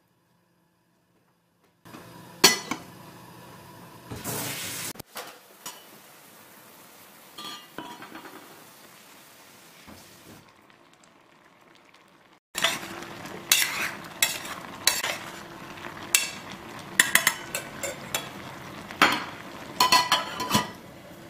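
Water boiling around diced potatoes in a stainless steel saucepan, a steady bubbling. About halfway it gets louder, with a series of sharp metallic clinks from the stainless steel lid against the pot.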